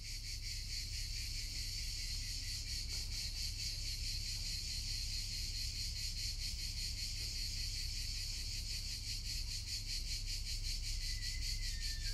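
Steady chorus of insects, a dense high, rapidly pulsing buzz, over a faint low rumble. It fades in over the first second.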